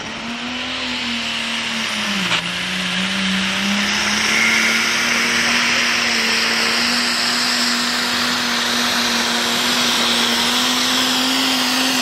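Turbocharged diesel engine of a pulling tractor at full load, dragging the weight sled. Its note dips briefly with a click about two seconds in, then holds high and steady under a loud high-pitched hiss.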